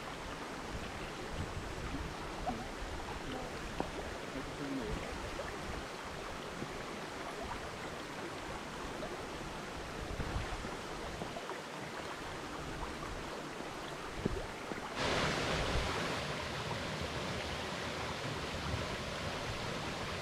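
Waterfall in heavy flow after rain, a steady rush of falling water. It grows louder and brighter about fifteen seconds in.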